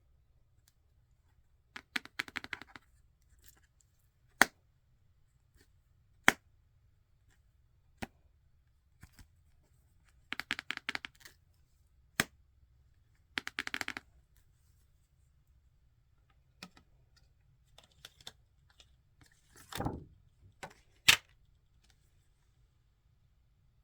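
Makeup products and their packaging being handled: three short bursts of quick tapping and several sharp single clicks, spaced a few seconds apart.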